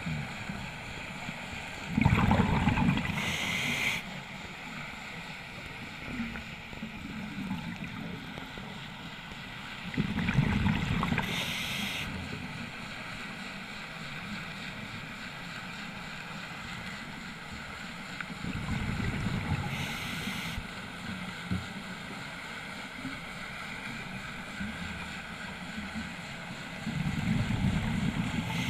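Scuba diver breathing through a regulator, heard through an underwater camera housing: a rumbling burst of exhaled bubbles ending in a short hiss, about every eight seconds, four times, over a steady low background noise.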